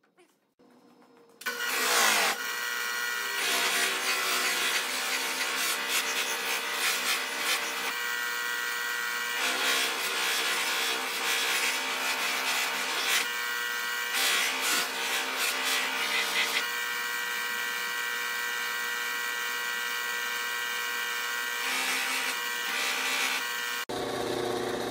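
Pedestal buffing machine running, its large spinning buff wheel rubbing against the finish of a guitar body in repeated passes. It starts about a second and a half in.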